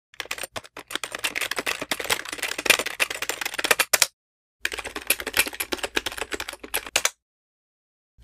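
Fast typing on a computer keyboard in two bursts, one of about four seconds and then a shorter one after a brief pause.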